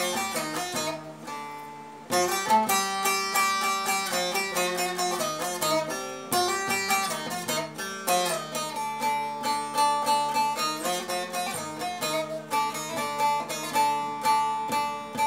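Bağlama (Turkish long-necked saz) played solo with a plectrum: a fast run of picked melody notes. The notes die away briefly about a second in and start again a second later. It is the instrumental introduction before the singing of the folk song begins.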